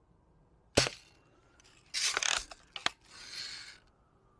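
Red Ryder lever-action BB gun firing once with a sharp snap about a second in. About a second later comes a short rasp and a click, the sound of the lever being worked to cock it for the next shot, followed by a short hiss.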